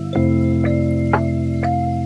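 Background music: sustained keyboard chords with light notes struck about twice a second.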